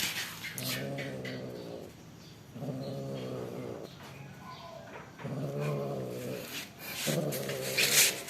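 Cat yowling: four long, low, drawn-out moans, each over a second long, with a short rasping noise near the end. These are mating yowls.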